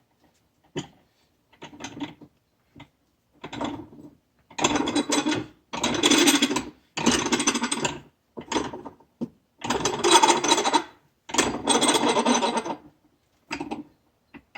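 Hand wrench tightening the nut on a Yamaha Wolverine secondary clutch: a series of rasping strokes, each about a second long, with smaller scrapes between.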